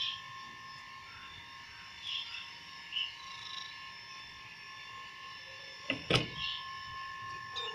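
Month-old kittens mewing: several short, faint, high-pitched mews spread out, with two sharp knocks close together about six seconds in.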